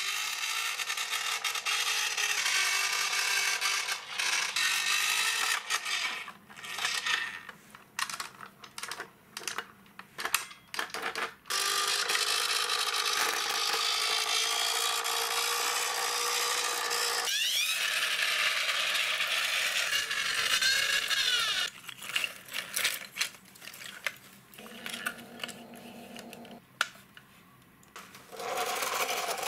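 Toy vehicles rolling on a concrete floor, a running scrape with a faint wavering whine, broken by scattered clicks and knocks as the plastic toys and small wooden logs are handled.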